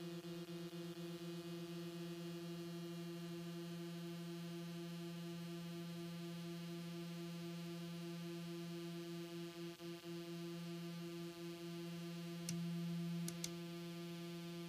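Doepfer Dark Energy Mk I analog synthesizer holding a steady low square-wave drone, its pulse width swept slowly by a triangle LFO so the timbre wavers. Near the end a few sharp clicks come with a brief louder stretch.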